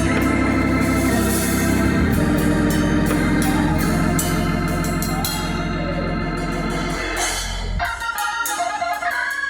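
Organ playing held chords over a deep bass; about eight seconds in the bass drops out, leaving lighter, higher notes.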